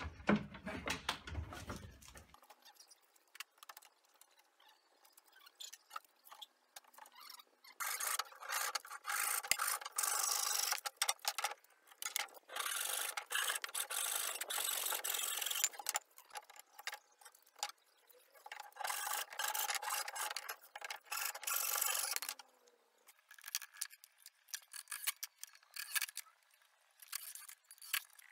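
Hand saw cutting through a wooden board with back-and-forth rasping strokes, in a long spell of about eight seconds and then a shorter one of about three seconds. Light scattered knocks and clicks come before and after.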